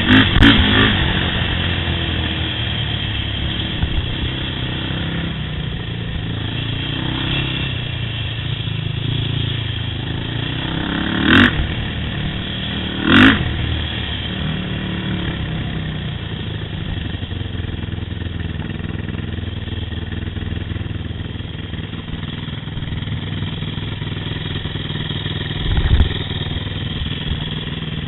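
Yamaha YFZ sport quad's engine running steadily on the trail, with a few sharp knocks: two about a second and a half apart midway through and another near the end.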